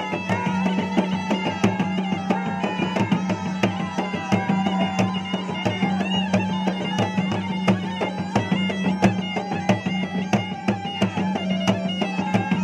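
A pair of Makassar gendang drums beaten in a fast, busy rhythm with a curved stick and the bare hand. Over them runs a continuous, ornamented reedy melody above a steady low drone.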